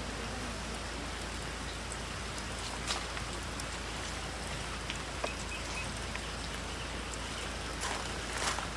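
Steady rain falling, with a few light knocks and footsteps on gravel near the end.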